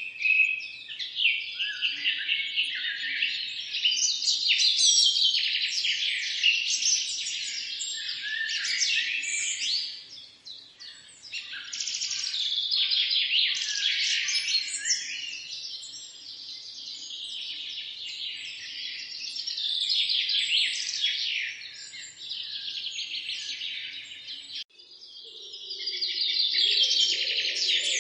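Many songbirds chirping and trilling together in a dense, continuous chorus. About 25 s in, the sound cuts out abruptly and comes back at once.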